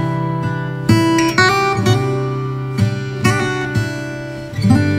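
Background music: acoustic guitar chords, plucked and strummed, each new chord ringing on.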